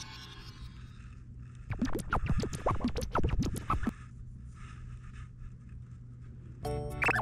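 Scratching and scuffling for about two seconds, made of quick scrapes and rubs. Background music comes in near the end.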